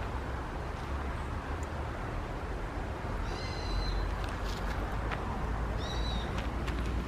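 Two short, high-pitched calls from a bird or other wild animal, one about three seconds in and one near six seconds, over a steady low outdoor rumble with a few faint crackles.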